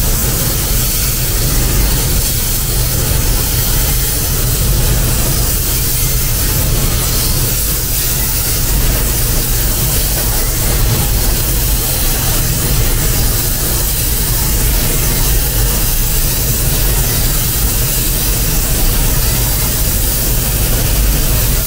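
Air spray gun hissing steadily as it sprays paint onto a car body panel, over the low rumble of the spray booth's ventilation.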